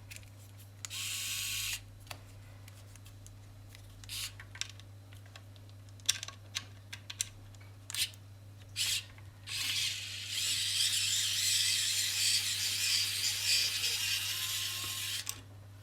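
Phillips-bit screwdriver backing a screw out of a smart plug's plastic housing: a few short bursts, then a steady run of about five seconds near the end.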